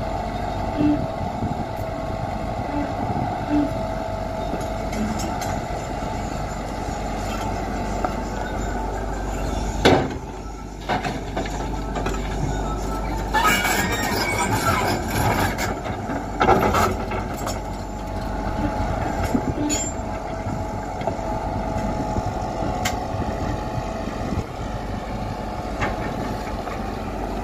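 Tata Hitachi Zaxis 120 excavator's diesel engine running steadily as it works. There is a sharp knock about ten seconds in. From about thirteen to fifteen seconds, stones and earth clatter as the bucket pours them into a steel tipper truck's bed, and another knock follows at about sixteen seconds.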